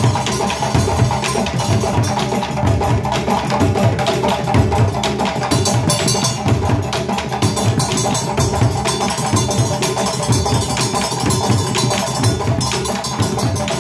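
West African drum ensemble playing a fast, continuous rhythm: several hand-struck djembes over a stick-beaten bass drum.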